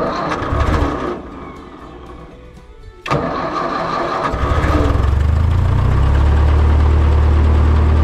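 1963 Ford 2000 tractor engine being cold-started in freezing weather. A first crank doesn't catch and dies away; a second crank about three seconds in catches, and from about four seconds in the engine runs steadily.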